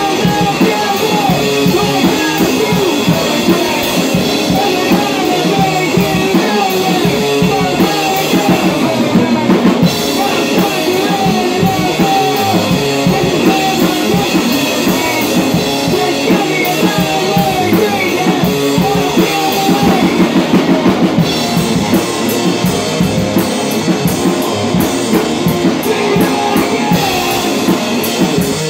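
A drum kit and an electric guitar playing rock music live together in a garage rehearsal room, with steady drumming and cymbals under the guitar. The cymbal playing shifts about ten seconds in and again just past twenty seconds.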